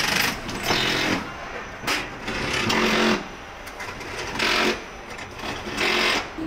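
Handheld power tool on an assembly line running in short bursts: about six irregular bursts, the longest near the middle lasting under a second.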